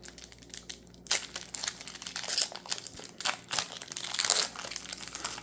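Crinkling and tearing of a Pokémon TCG booster pack's foil wrapper as it is opened by hand: irregular crackling from about a second in.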